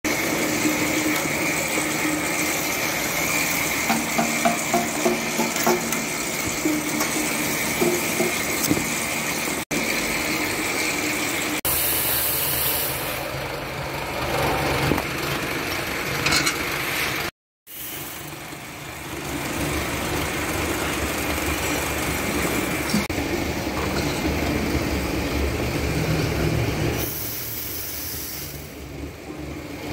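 Shisha charcoal production machinery running steadily with a constant whine: extruder, conveyor and disc cutter. A run of knocks comes about four to six seconds in, and the machine noise shifts at several points.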